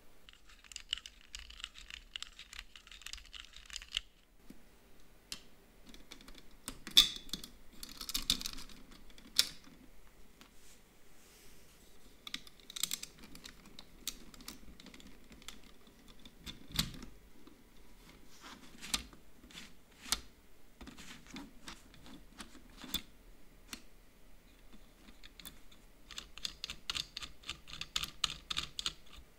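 Lego Technic plastic parts clicking and clacking as they are handled and fitted together. There are runs of rapid clicking near the start, as a gear on the axle is turned by hand, and again near the end, with scattered sharp clacks in between.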